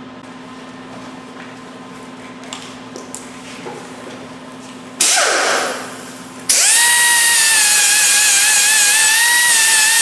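A low steady hum with a few light clicks, then a handheld power tool motor bursts on about five seconds in and spins down with a falling whine. About a second and a half later it is switched on again and runs loud and steady with a slightly wavering whine.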